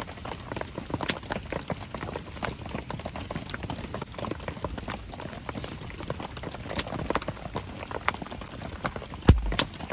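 Wood campfire crackling and popping in the rain, with rain pattering steadily underneath. A single heavy thump near the end, followed by a sharp crack.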